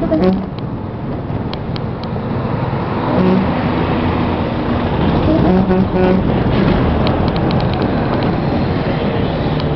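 Steady road and wind noise of a vehicle in motion, heard from on board. A couple of short pitched sounds rise above it about three and six seconds in.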